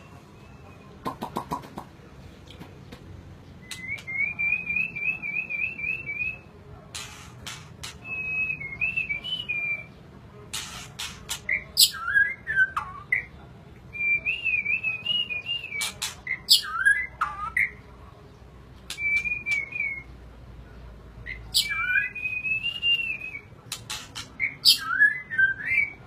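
White-rumped shama (murai batu) singing: short, varied warbling phrases with sharp clicking notes, repeated about eight times with brief pauses between them.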